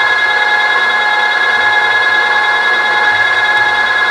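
Machine-tool spindle running with a steady high-pitched whine of motor and gears while spot-drilling a hole for a pulley's locking pin.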